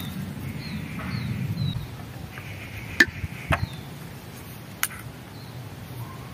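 A metal spoon clinking against a small glass bowl three times in the second half as food is scooped from it, with a few faint bird chirps early on.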